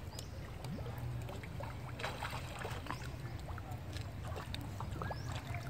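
Water splashing and lapping as long-tailed macaques swim in a pond, over a steady low rumble.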